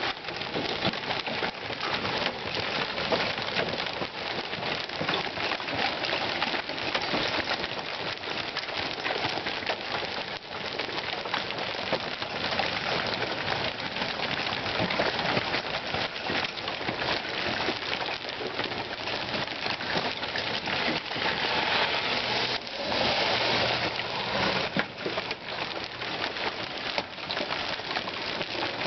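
A hail storm: hail and rain falling steadily on ground and pavement, a dense stream of small ticking impacts, heavier for a couple of seconds about three-quarters of the way through.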